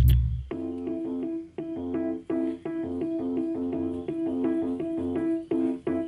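Background music: a keyboard playing a quick repeating pattern of short notes, with no drums.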